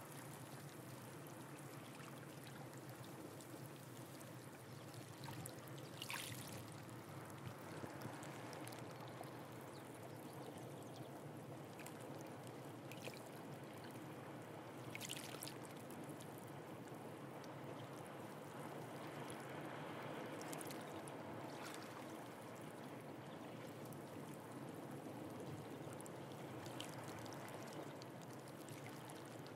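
Calm sea lapping and trickling among shoreline rocks: a steady soft rush of water, broken by a few brief sharp sounds.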